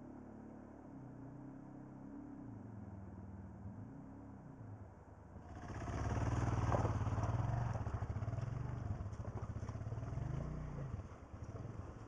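Single-cylinder trail motorcycle engine running at low revs, faint at first, then much louder after about five seconds, its note rising and falling with throttle blips as the rider walks the bike into the river.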